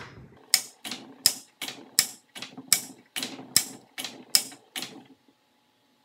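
Sharp metallic clacks, about a dozen at roughly three a second, of a strong rare-earth magnet being knocked and snapped against the steel birdcage flash hider of an AR-15 barrel to work its retaining pin loose. The clacks stop about five seconds in.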